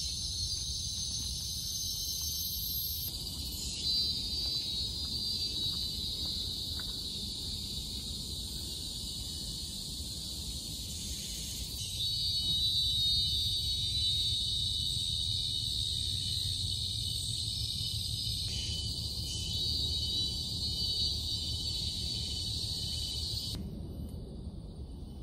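A chorus of forest insects keeping up a steady high shrill, with a low rumble beneath. The chorus changes suddenly several times, stronger in some stretches than others.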